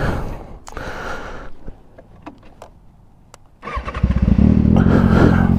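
A Kawasaki ZX6R's inline-four engine is started about two-thirds of the way in and settles straight into a steady idle, after a few faint clicks.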